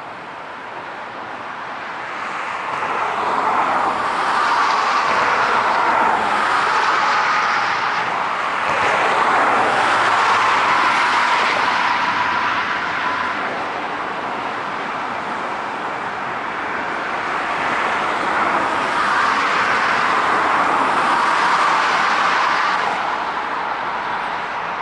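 Interstate road traffic rushing past, swelling twice as vehicles go by, with no horn sounding.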